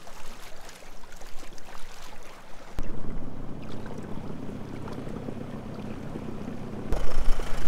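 Shallow water splashing and sloshing around an aluminium dinghy as it is dragged and kicked out into the shallows, followed by steadier lapping water with wind on the microphone.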